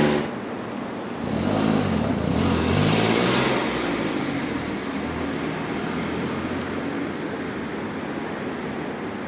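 A road vehicle's engine passing close by about a second in, swelling and then falling away, followed by steady city traffic noise.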